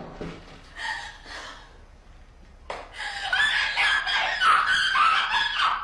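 A woman's high-pitched vocalising in quick, broken bursts, loud from about three seconds in, sounding like laughter: the cries of a patient in distress and heading into a meltdown.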